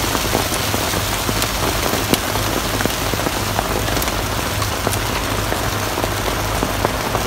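Heavy rain pouring down on a paved street: a steady dense hiss, broken by frequent sharp ticks of drops striking close by.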